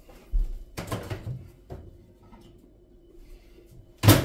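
Knocks and clatter from handling things in a kitchen, such as dishes or a cupboard door, with the loudest knock near the end. A faint steady hum runs underneath.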